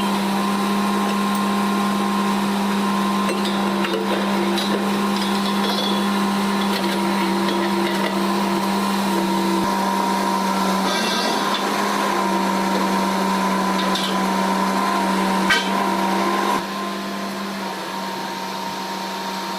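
Borewell drilling rig's machinery running steadily with a constant hum and occasional metallic knocks; it drops to a quieter running level near the end.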